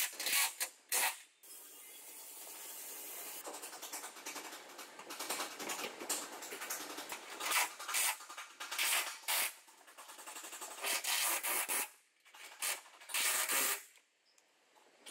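A handheld cordless power driver running in short, repeated bursts as it drives the door hinge bolts, with a grating, rasping sound and brief pauses between the runs.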